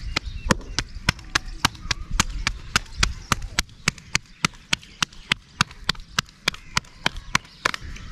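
Bare hands slapping a ball of roti dough back and forth between the palms to flatten it for the tandoor: a quick, even run of sharp slaps, about three or four a second.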